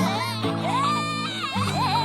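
Background music: steady low held notes with a gliding high melody above.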